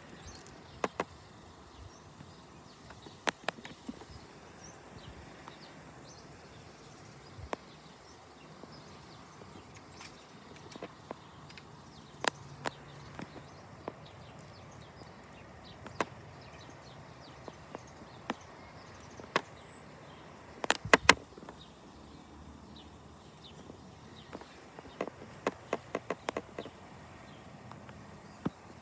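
Quiet outdoor ambience with a faint steady high hiss, broken by scattered sharp clicks and taps: single ones every few seconds, a loud quick cluster about two-thirds of the way in, and a rapid run of small ticks near the end.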